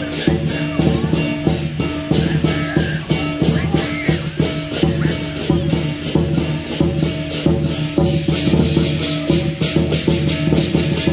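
Lion dance percussion: a large drum beaten in a fast, steady rhythm with clashing cymbals, loud and unbroken.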